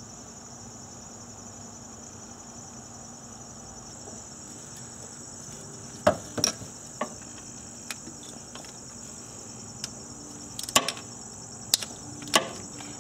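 Steel socket and extension clinking against the 10 mm bolts and the transmission case while the solenoid valve's fasteners are undone: a few sharp separate clicks from about six seconds in. Under them runs a steady high-pitched buzz.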